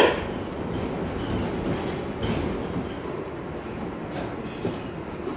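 New York City Subway R62A train running on the (6) line, heard from inside the car: a steady rumble of wheels on rail with scattered clicks, and a sharp knock right at the start.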